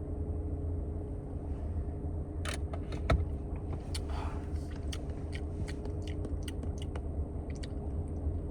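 Steady low rumble inside a parked car, with scattered small clicks and knocks, the sharpest about three seconds in, and a short breathy sound about four seconds in.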